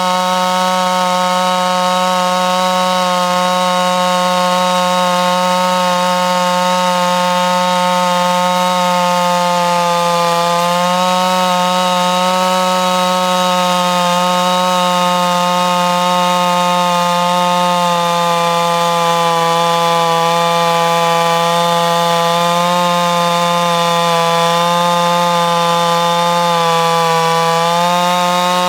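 Stihl MS660 two-stroke chainsaw, mounted in a Norwood PortaMill PM14 chainsaw mill, running at full throttle under load as it rips a log lengthwise into a slab. The engine pitch holds steady and sags briefly a few times, about ten seconds apart, as the chain takes load.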